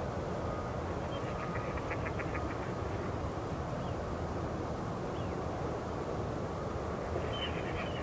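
Ducks quacking in quick runs, about a second and a half in and again near the end, with a couple of faint bird whistles in between, over a steady low rumble.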